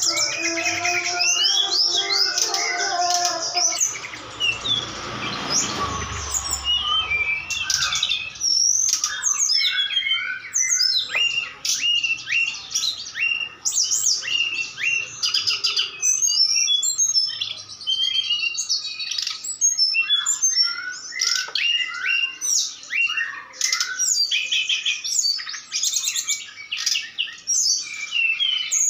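Caged brown-chested jungle flycatcher and snowy-browed flycatcher singing against each other: rapid high chirps, trills and twittering phrases with hardly a pause. Under them, a lower, held tonal call runs through the first few seconds, and a short rushing noise comes about four to seven seconds in.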